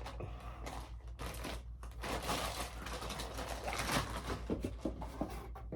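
Plastic packaging crinkling and rustling in irregular bursts as items are handled and unwrapped, over a steady low hum.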